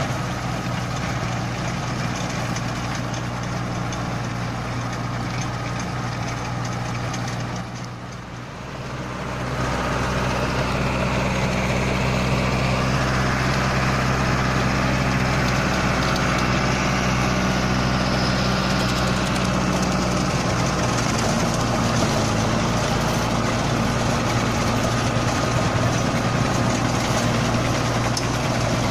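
Mahindra Arjun Novo 605 DI-i tractor's 57 HP diesel engine running steadily under load at creeper speed, driving a rotavator tilling through soil and cut branches. The sound dips briefly about eight seconds in, then comes back louder.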